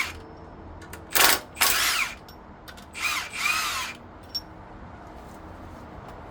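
Cordless power tool with a 1/2 inch socket running in two bursts of about a second each, spinning bolts off an AMC 360 engine's front accessories; its motor pitch rises and falls within each burst.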